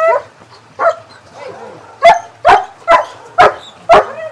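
A dog barking: one sharp bark about a second in, then a steady run of sharp barks, about two to three a second, from two seconds on.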